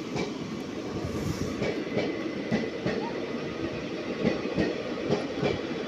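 Rail vehicle running along the track: a continuous rumble with frequent, irregular clacks of steel wheels on the rails.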